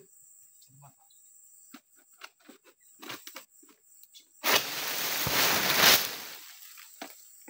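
An oil palm frond being cut with a long-pole egrek sickle. Light scraping and clicks of the blade at the frond base, then a loud rustling swish of under two seconds as the cut frond tears loose and slides down through the crown.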